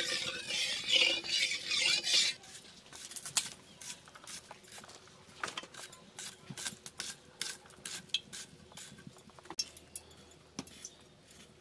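A metal spatula scraping and stirring in an aluminium kadai of mustard oil for about two seconds. Then scattered light clicks and taps follow as an onion and a taro root are peeled and cut against a curved cutting blade.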